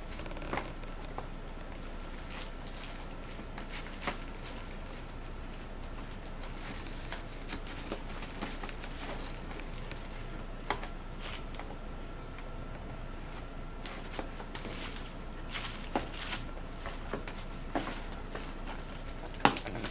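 Camcorder's cardboard retail box being opened and its packaging handled: scattered light clicks, taps and rustles of cardboard and plastic, with a few sharper knocks, over a faint steady hum.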